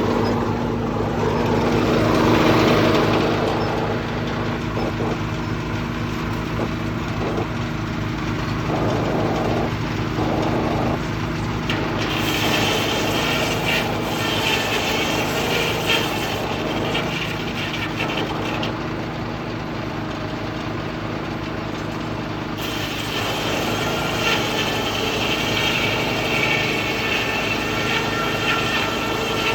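Sawmill powered by a Detroit 6-71 diesel engine running steadily, with a saw cutting wood twice: once briefly about twelve seconds in, and again from about two-thirds of the way through.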